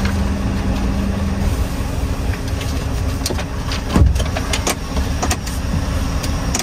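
Scania V8 truck engine idling steadily, with a loud thump about four seconds in and a few sharp clicks and knocks around it.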